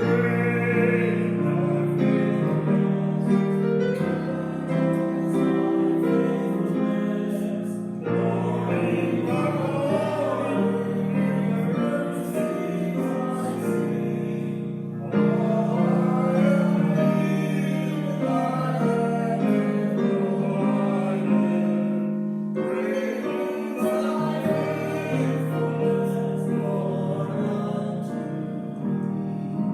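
Hymn music: keyboard accompanying singing, in phrases several seconds long.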